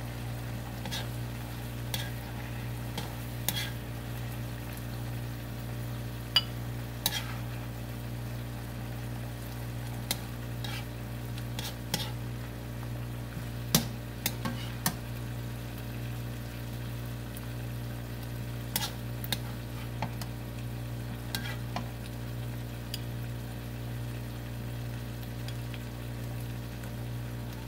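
Plastic spatula scraping and tapping against a nonstick wok and a plate as cooked yardlong beans and pork are scooped out, in scattered irregular strokes over a steady low hum.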